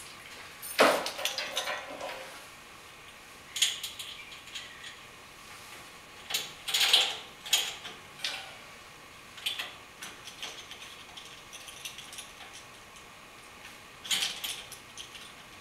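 Metal chain and hanging hook clinking and rattling in irregular bursts of sharp clicks while a long LED shop light is hung from the chain and adjusted by hand. The loudest rattle comes about a second in, with a few shorter clusters later.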